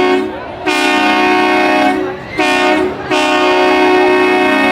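Multi-chime train horn sounding a chord in several long blasts with short breaks between them, the last blast the longest.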